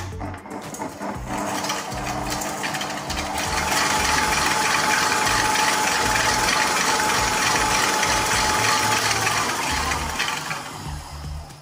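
Electric stand mixer running, its wire whisk beating butter, sugar and salt to cream them until fluffy. The motor speeds up over the first few seconds, runs steady with a thin whine, then slows near the end.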